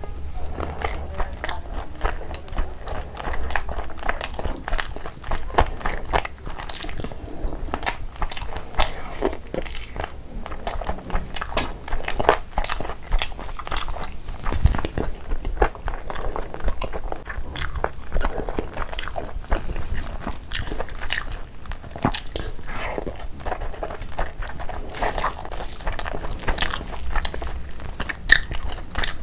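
Close-miked eating by hand: biting into and chewing fried chicken lollipops and mouthfuls of curry and fried rice, with crunching and many small irregular clicks of the mouth and food.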